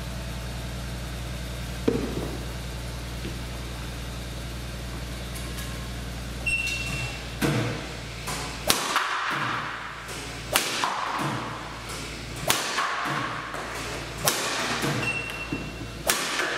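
Apex Blizzard Pro ZZ badminton racket smashing shuttlecocks: a sharp crack of the strings on the shuttle about every two seconds, five or six times, over a steady low hum. A short high beep sounds twice.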